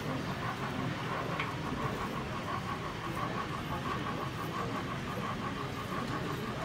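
OO gauge model steam tank locomotive running with a train of Pullman coaches, with a regular beat about four times a second over the steady background hum of an exhibition hall.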